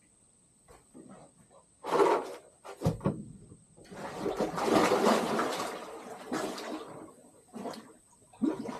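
A person sliding off a boat deck into river water: two short splashes or knocks, then a few seconds of water splashing and sloshing around the body as he goes in.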